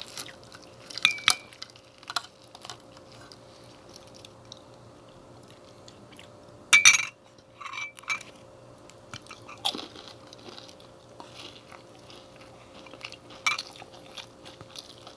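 Close-up eating sounds: chewing and crunching of crispy fried chicken, with a fork and spoon clicking against the plate now and then. The sharpest, loudest noise comes about seven seconds in.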